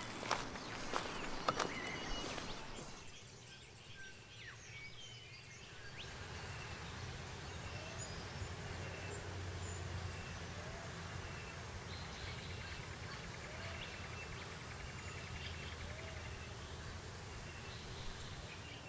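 Footsteps crunching on dry bark and leaf litter for the first few seconds. After that, quiet outdoor ambience with a steady low hum and faint, repeated small bird chirps.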